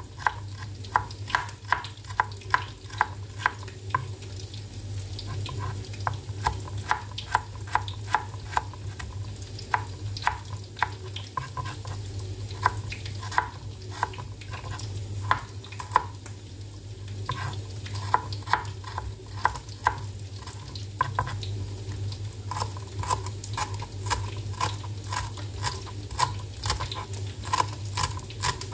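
Kitchen knife slicing kencur (aromatic ginger) leaf stalks on a cutting board: irregular sharp taps of the blade on the board, often one or two a second. Beneath them are a faint sizzle of tempeh frying in oil and a low steady hum.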